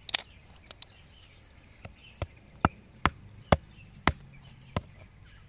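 A series of sharp knocks of a hard object striking rock, about ten in all. The clearest come roughly every half second in the middle, like chipping the rock away around the embedded stone.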